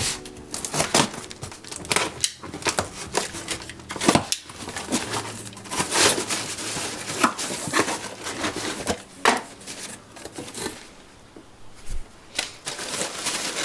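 A cardboard shipping box being unboxed: a cutter slitting the packing tape, the cardboard flaps scraping open, and tissue paper rustling and crinkling as it is pulled aside, in a string of short scrapes and rustles.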